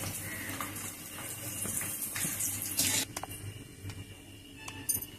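Baby potatoes deep-frying in hot oil in a kadai, a steady sizzle that cuts off about three seconds in.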